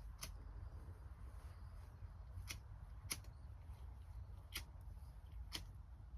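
Five faint, sharp clicks at irregular intervals over a steady low rumble.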